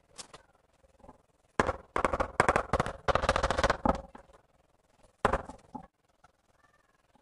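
Rubber mallet tapping a ceramic wall tile to bed it into the adhesive: quick runs of knocks for about two seconds, then a shorter run a second later.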